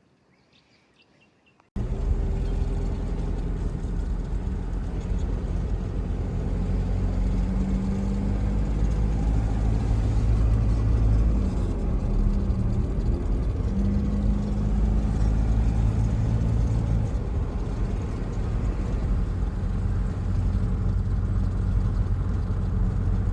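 A 4WD's engine and road noise while driving, running steadily after a brief near-silent moment at the start. The engine note drops and climbs again about halfway through.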